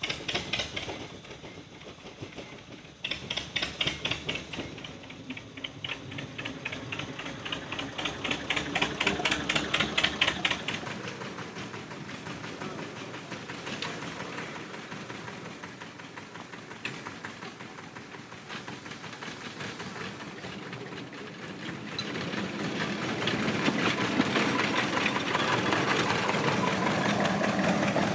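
Small narrow-gauge diesel locomotive engine starting up and running with a rapid, even chugging. After about ten seconds the sound changes to the loco's engine running as it drives along the track, growing louder near the end.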